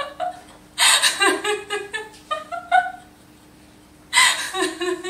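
A woman laughing hard: a breathy burst about a second in that trails off in short pitched gasps, and another burst of laughter near the end.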